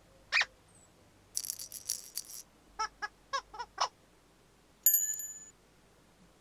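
Playful cartoon sound effects in turn: a short rattle, then a quick run of five short squeaky notes, then a single bell-like ding.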